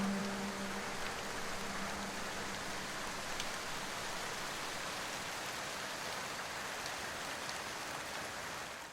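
Steady rain falling, an even patter across the whole sound. A low held music note lingers faintly for the first few seconds, and everything fades out at the very end.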